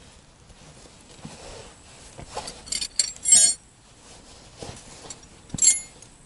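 Metal wrenches clinking against each other and the car's underbody while the parking-brake cable is being tightened: a cluster of short clinks about two and a half to three and a half seconds in, and another clink near the end.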